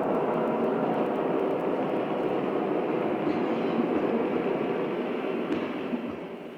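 Steady rushing, rumbling noise with no clear rhythm or pitch, fading away over the last second or so.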